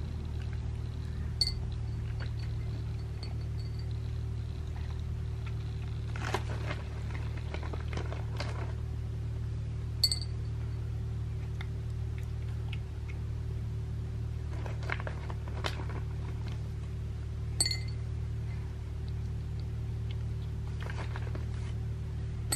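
Scottish fold cat licking from a ceramic bowl, with soft lapping sounds now and then. The bowl gives three sharp ringing clinks, over a steady low hum.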